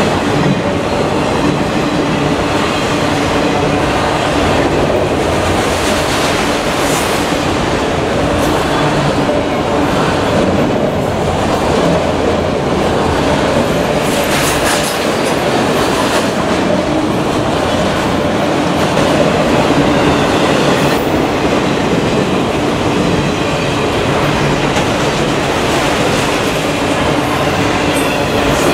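Autorack freight cars of a passing freight train rolling by close up: a steady rumble and clatter of steel wheels on the rails, with a brief louder burst of wheel noise about 15 seconds in.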